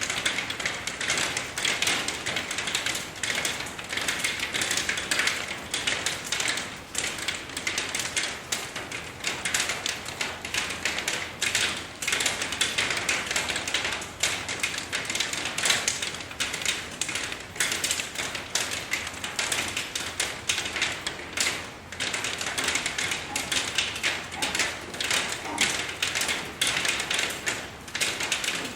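Steady rain, with many drops tapping sharply and irregularly on a hard surface over a constant hiss.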